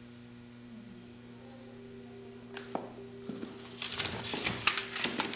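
Soft background music holding a steady low chord. From about four seconds in, a quick run of sharp clicks and rustles rises over it.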